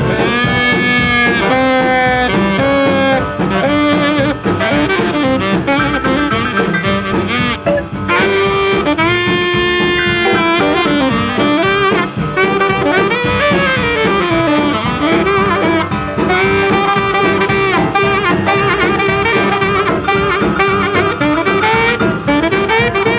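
Background music: jazz with brass horns playing a melody over a steady rhythm.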